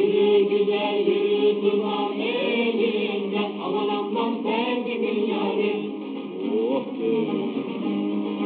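Mixed choir singing a Turkish folk song. The sound is muffled, with no high treble, as on an old recording.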